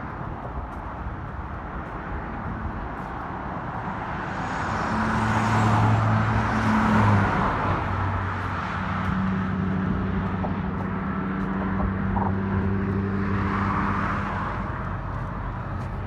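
Road traffic running along the bridge: cars passing, their tyre noise swelling to its loudest about five to seven seconds in and again near fourteen seconds, over a steady low engine hum from about five seconds in.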